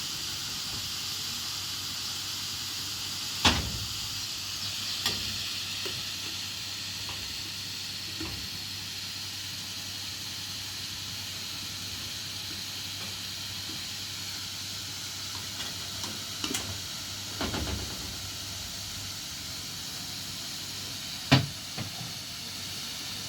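A steady hiss, with a few sharp knocks, the loudest about three and a half seconds in and about two seconds before the end.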